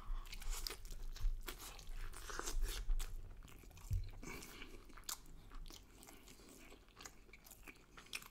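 A person chewing and biting a mouthful of grilled meat close to the microphone: many small wet clicks and crunches, busier in the first few seconds and fainter after about five seconds.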